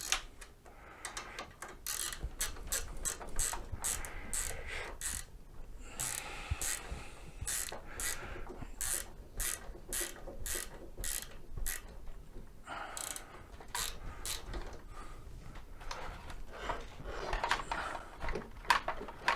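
Hand ratchet wrench clicking as a bolt is tightened, in runs of about two or three clicks a second with short pauses between them.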